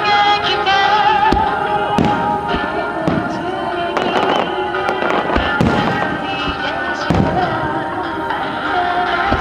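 Starmine fireworks display: shells bursting in quick succession with repeated sharp bangs, over music playing alongside.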